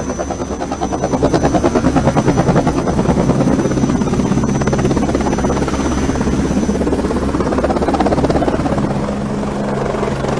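Mi-24 attack helicopter passing low overhead: loud rhythmic rotor beat, strongest a second or two in, over a steady engine hum and a thin high turbine whine that fades out about two-thirds of the way through.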